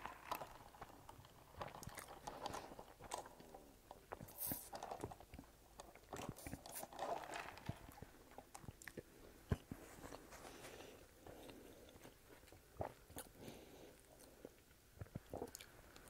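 Close-miked ASMR eating sounds: slow chewing with soft wet mouth clicks, and a single sharp knock about nine and a half seconds in.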